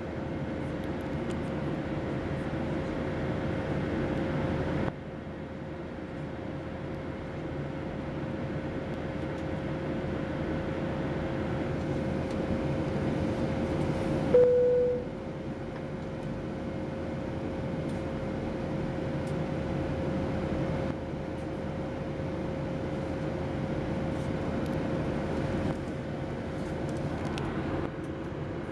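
Boeing 737-700 cabin noise in flight: the steady rush of the engines and airflow over the fuselage, with a steady hum running under it. About halfway through, a brief, louder tone sounds for under a second.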